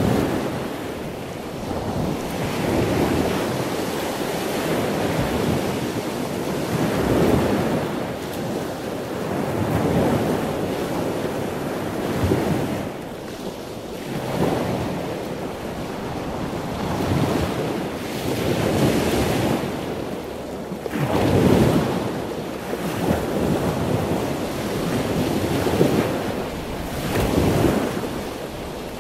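Wind buffeting a microphone held low over the sea, with water sloshing and splashing around it, the rush swelling and fading every couple of seconds.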